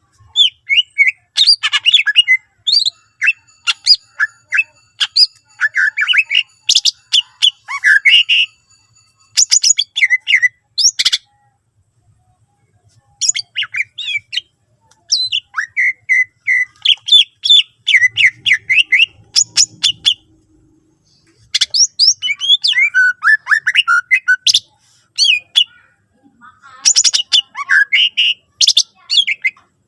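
A cucak ijo (green leafbird) singing a fast, varied song: bursts of sharp chirps, trills and gliding whistles, broken by short pauses near the middle and near the end.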